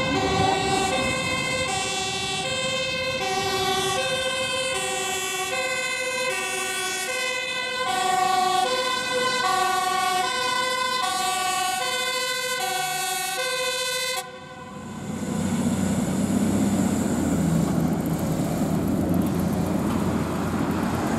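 Dutch fire engine's two-tone siren, a low and a high note alternating evenly about every two-thirds of a second. It cuts off suddenly about fourteen seconds in, leaving the truck's engine running low under traffic noise.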